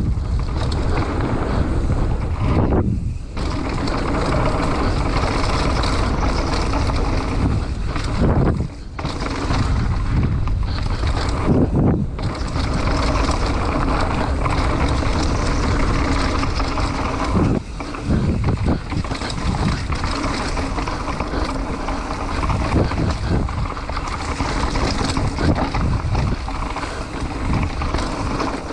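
Wind rushing over the microphone and the rumble and rattle of a mountain bike descending a dirt trail, steady and loud with a few brief lulls.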